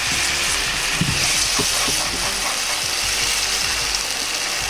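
Soy-based sauce and chicken fat sizzling and bubbling in a frying pan over a high gas flame as the sauce reduces, a steady hiss with a low rumble underneath.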